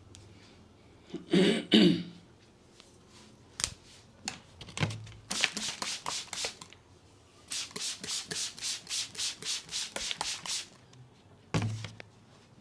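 Hands rubbing briskly over a person's head and hair during a head massage: a run of quick, even rubbing strokes about four a second, with two louder thumps a little over a second in.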